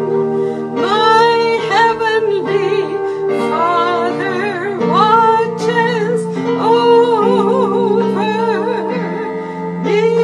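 A woman singing with a wide vibrato over sustained chords played on an electronic keyboard.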